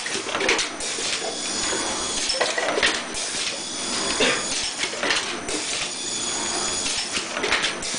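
Pneumatic screen printing machine for round bottles cycling: irregular metallic clacks and knocks about once a second as the screen frame and squeegee move across the bottle, with bursts of air hiss and a steady high whine underneath.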